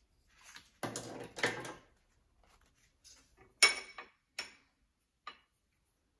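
Painting things handled on a glass-topped desk: a scraping rustle about a second in, then a sharp, ringing clink of something hard on glass, followed by two lighter taps.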